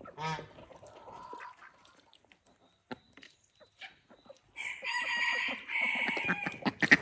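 A rooster crowing once, one long call of about two seconds in the second half, among scattered clucks and short farmyard bird calls. A short pitched call comes just at the start, and a rapid run of loud calls begins right at the end.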